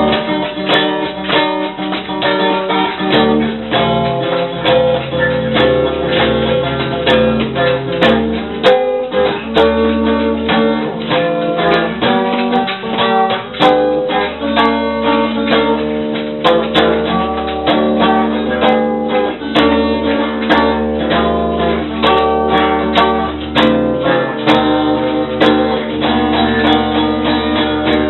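Instrumental background music of plucked acoustic guitar, a steady run of quickly picked notes.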